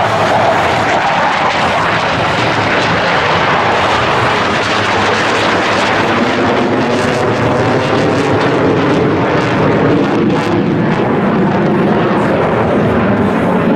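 Blue Angels F/A-18 Hornet jets running loud and continuous as the formation passes overhead, the roar taking on a rippling, phasing shimmer about halfway through.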